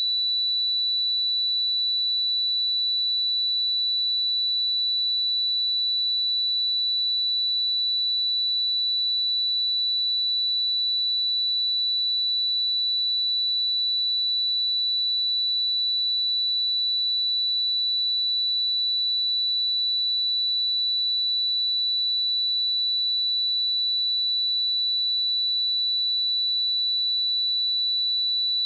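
A pure 3958 Hz sine-wave test tone, a single steady high-pitched tone held at a constant level.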